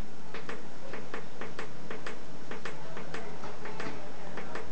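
Rapid clicking of a control button pressed over and over, about four clicks a second, as the brightness setting of a Panasonic TC-D20R television is stepped.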